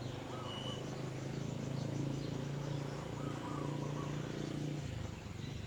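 A steady low motor hum, which stops about five seconds in, under a few faint bird calls.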